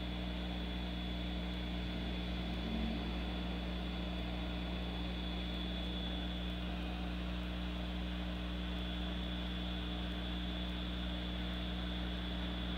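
Hot air rework station's blower running steadily at air-flow setting 3 while heating a MOSFET's solder joints: a constant rushing hiss with a faint high whine and a low hum.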